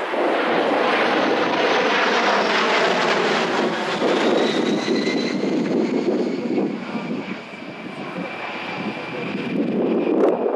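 Jet noise of an A-10 Thunderbolt II's two TF34 turbofan engines as it flies past, with a faint high whine over it. It eases off about seven seconds in and grows louder again near the end.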